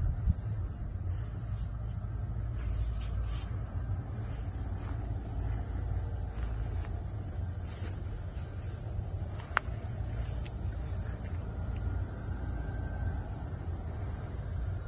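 An insect singing in a steady, unbroken high-pitched trill, which she calls a cricket going at full tilt and then wonders might be cicadas. A low rumble runs underneath.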